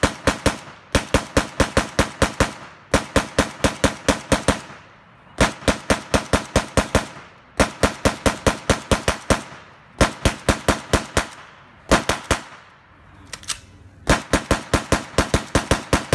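Browning M1919A4 air-cooled .30-calibre machine gun firing in repeated bursts of one to two seconds, about seven shots a second, with brief pauses between bursts; a short burst and a single shot come a little past the middle.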